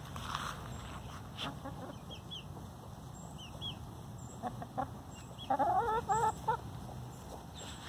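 Hens clucking, with a quick run of short, wavering calls about two-thirds of the way in; faint high chirps earlier.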